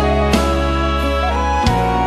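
Background music: a slow, soft instrumental of sustained chords that change twice, with light taps at the changes.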